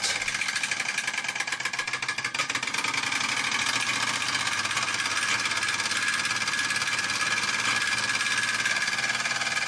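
Small model steam engine on a toy steam vehicle chassis running steadily under steam, a rapid fine clatter from the engine and its chain drive over a steady hiss.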